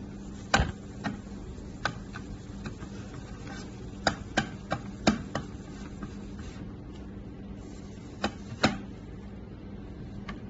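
Irregular light clicks and knocks from objects being handled, in small clusters, over a steady low hum.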